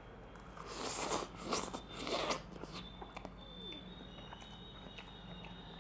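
A man slurping ramen noodles off a fork: several short, noisy slurps in the first two and a half seconds, then quieter chewing with small mouth clicks.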